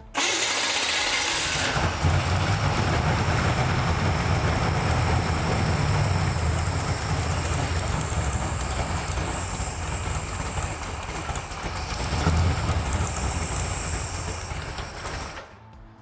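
A small-block Chevy 400 with a radical cam and FiTech EFI cranks on the starter for about two seconds, then fires and runs with the throttle cracked open. It is starting now that the EFI key wire has power during cranking. The engine keeps running until it stops abruptly near the end.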